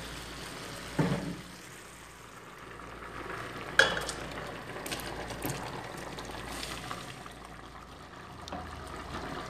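Chicken curry bubbling in a steel pan with a low hiss, a wooden spoon stirring and knocking about a second in, then the pan is tipped over a steel pot of boiled dal, with a sharp clink of metal on metal near four seconds and a few lighter clicks after.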